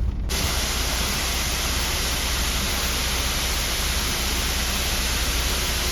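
Steady rush of falling water from a roadside waterfall, an even hiss-like noise that cuts in suddenly just after the start.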